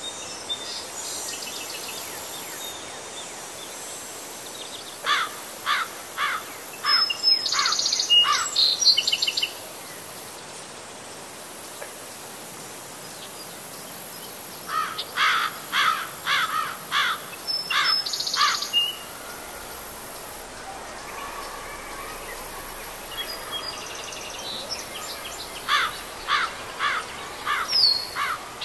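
A bird calling in three bouts of short repeated notes, a few a second, over a steady high hiss.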